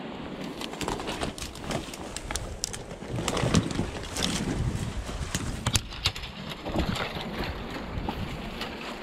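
Dry bare branches and twigs crackling and scraping as they are pushed aside by hand, a run of sharp snaps and clicks that is loudest around three and a half seconds in.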